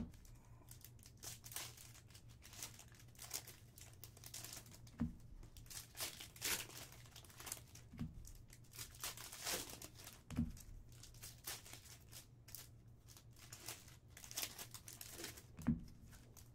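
Plastic-foil trading-card pack wrappers crinkling and tearing open under the hands, with a few dull knocks.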